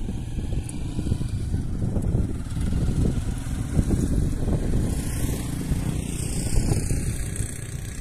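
Wind buffeting the microphone outdoors: a loud, uneven low rumble that flutters irregularly, with a faint hiss rising higher up about five seconds in.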